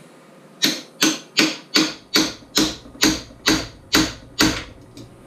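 Rubber mallet beating a part of a 2005 Yamaha Raptor 660R's rear axle hub assembly into place: ten evenly spaced blows, a little over two a second, each with a short ring.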